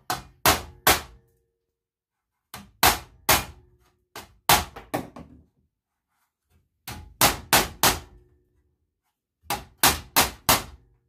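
A small hammer strikes the cracked steel deck of a walk-behind lawn mower in quick runs of three to five blows with short pauses between them. Each blow is a sharp metallic bang with a brief ring from the deck.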